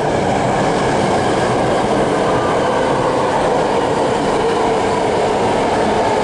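A passing train: a loud, steady rumble that builds just before and then holds, with a faint thin squeal running under it.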